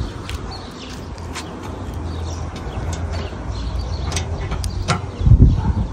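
Wire grill basket of pork pieces clinking and scraping against a steel charcoal grill as it is set down, with scattered light metal ticks over a steady low rumble; a heavy low thump comes near the end.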